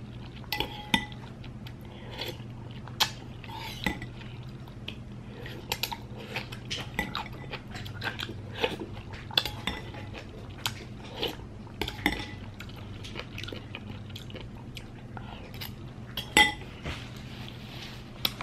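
Metal spoon clinking and scraping against a glazed ceramic bowl in many short, irregular taps, with chewing in between.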